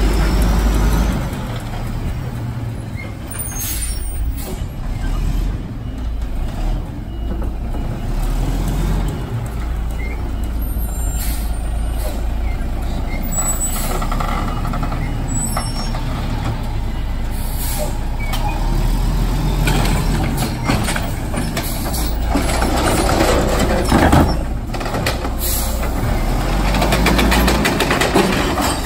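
Mack garbage truck's diesel engine running, with several short, sharp air-brake hisses as it creeps along and stops. Near the end the engine gets louder as the automated side-loader arm works, lifting a cart.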